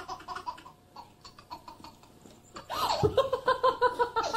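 A baby laughing: a short laugh at the start, then, nearly three seconds in, a quick run of high-pitched 'ha-ha-ha' bursts, about five or six a second.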